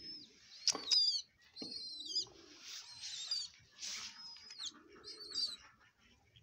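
Baby pigeon squeaking over and over in high, short peeps that slide downward in pitch. Low, soft pigeon coos come in between, about three times.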